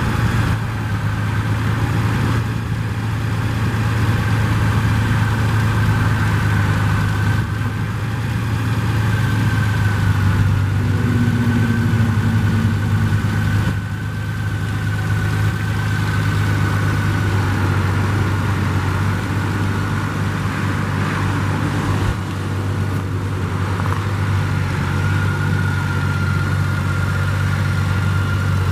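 2018 Honda Gold Wing's flat-six engine idling steadily through its stock exhaust.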